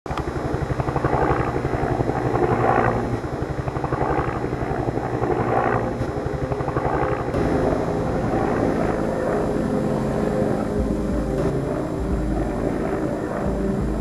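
Helicopter flying overhead, its rotor beating fast and even. About seven seconds in, the sound gives way to a low steady hum with sustained tones.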